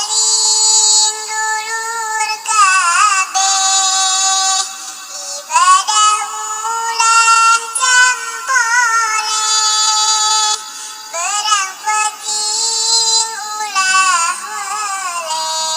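A Sundanese nadzom (devotional chanted verse) sung by a single high-pitched voice in long, wavering held notes and phrases, without instruments.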